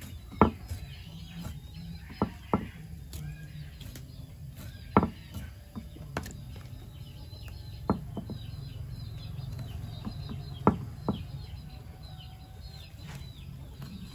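Sharp, separate knocks every one to three seconds, over birds chirping in the background.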